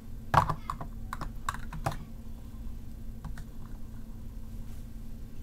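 Hard plastic clicks and taps as a Beyblade top is handled and set into a compartment of a clear plastic storage case: a quick run of about half a dozen clicks in the first two seconds, then two faint ticks, over a low steady hum.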